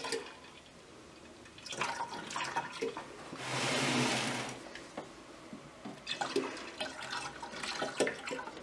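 Sugar wash sloshing inside a 19-litre plastic water bottle as it is swirled by hand to mix in freshly pitched yeast, with one loud whooshing slosh about three and a half seconds in and small knocks and drips around it.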